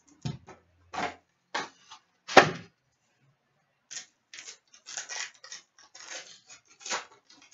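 Trading card packs and box packaging being handled by hand: a series of short crinkles and rustles of wrapper and cardboard, with one sharp snap about two and a half seconds in that is the loudest sound.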